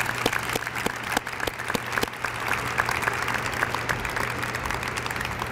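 Audience applauding: a steady patter of many hand claps.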